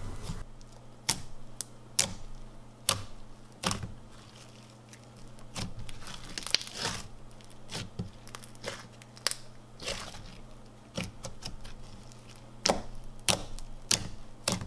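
Thick slime mixed with crushed foam packing-peanut pieces and small foam beads being pressed and poked by fingers. It gives scattered, irregular crackly pops and clicks.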